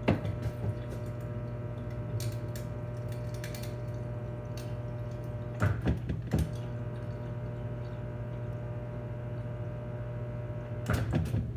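Refrigerator door water dispenser filling a stainless steel Hydro Flask bottle: water running into the bottle over the dispenser's steady valve hum. The hum starts with a knock, a few more knocks come about six seconds in, and it stops with more knocks shortly before the end.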